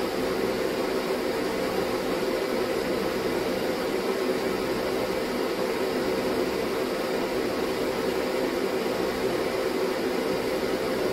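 Ventilation fan running steadily: an even rush of air with a constant hum.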